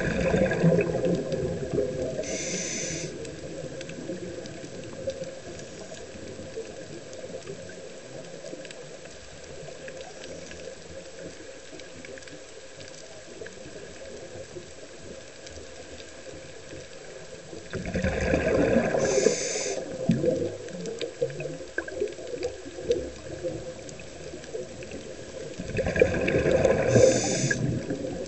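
A scuba diver's breathing through a regulator, heard underwater: three breaths, near the start, about eighteen seconds in and about twenty-six seconds in, each a burst of exhaled bubbles with a short hiss. Faint steady water noise in between.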